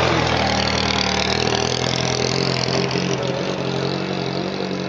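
A classic car's engine running steadily as the car pulls away, growing slightly quieter as it moves off.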